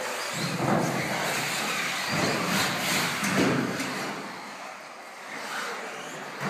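Several radio-controlled cars racing on a carpet track, their motors and tyres swelling and fading as the cars accelerate and pass.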